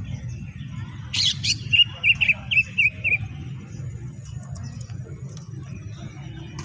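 Cucak ijo (green leafbird) singing: two sharp, shrill notes about a second in, then a quick run of about six short chirps, then a few faint high ticks. A steady low rumble of background noise runs underneath.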